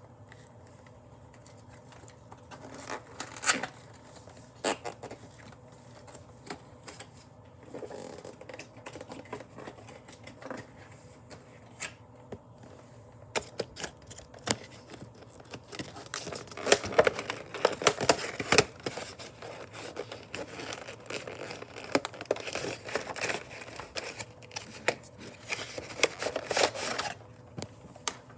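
Action figure packaging being opened by hand: cardboard and plastic crinkling, scraping and tearing with scattered clicks, in irregular bursts that get busier and louder about halfway through.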